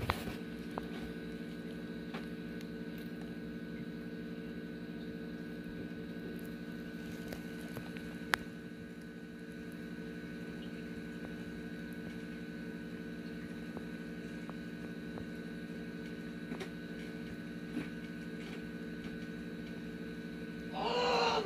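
Steady electrical hum with a few faint clicks. A voice starts right at the end.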